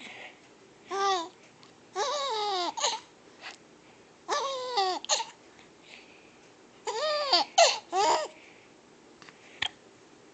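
A baby's high-pitched squealing laughter in four bouts, each rising and then falling in pitch, with short quiet gaps between them.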